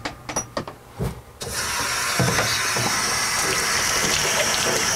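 A few knocks and clicks, then tap water starts running about a second and a half in and pours steadily into a utility sink to rinse a coiled copper wort chiller.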